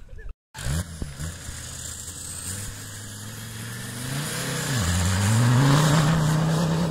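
Buggy's VW 2.5 L TDI five-cylinder turbodiesel running under load, dropping in pitch about four and a half seconds in and then revving back up, loudest over the last two seconds.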